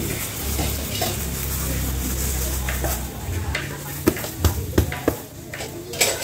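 Rice poured from a woven bamboo basket into a large pot of water over a wood fire, with a steady hiss of pouring grain, water and fire. From about four seconds in, a wooden stirring paddle knocks sharply against the pot several times.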